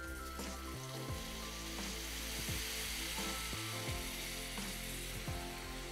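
Water poured into a pot of hot oil and fried onion-and-spice masala, sizzling and hissing steadily as it hits the oil.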